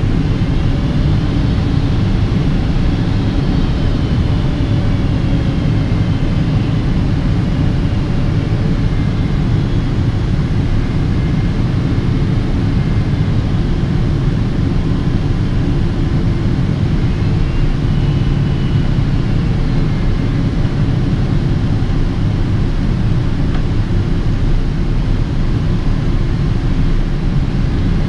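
Boeing 777-200ER cabin noise at a window seat beside the wing's Pratt & Whitney PW4090 turbofan during the approach descent: a steady deep rush of engine and airflow. Faint high whines slide up and down in pitch now and then.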